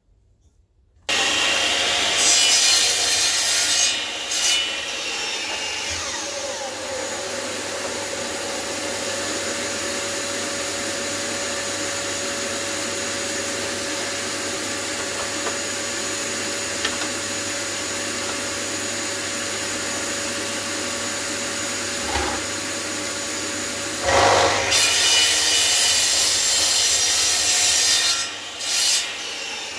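Power mitre saw starting up about a second in and cutting through a hardwood Merbau decking offcut, then running on with a steady whine, and making a second cut near the end.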